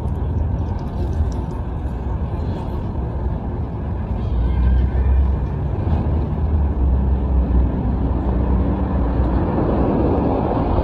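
A steady, loud, low rumbling outdoor noise with no distinct events, swelling slightly around the middle and near the end.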